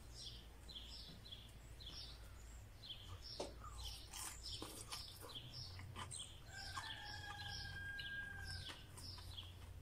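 Small birds chirping faintly, several quick falling notes a second, with a rooster crowing in the distance, one drawn-out call starting about six and a half seconds in. There are a few light clicks of a fork on a plate.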